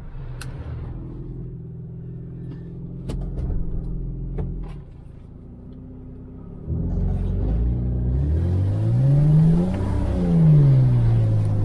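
Lexus 4x4's engine idling, with a click about three seconds in. Then, about seven seconds in, it runs up under load as the truck pulls out of the mud hole where it was high-centered: the pitch climbs for about three seconds, then falls as it eases off.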